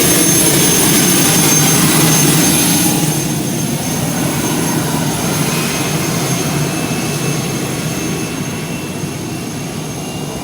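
A performance car's engine and exhaust, loudest in the first three seconds and then slowly fading away.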